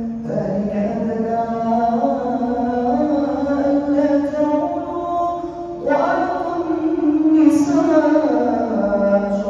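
A man chanting solo into a microphone, in Islamic melodic recitation style: long held notes with ornamented turns in pitch, in two phrases with a short break about six seconds in.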